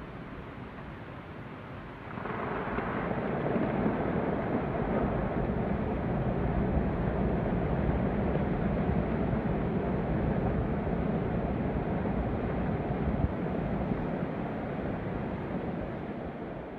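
Snow avalanche pouring down a cliff face: a steady, rushing rumble that jumps louder about two seconds in and slowly eases off near the end.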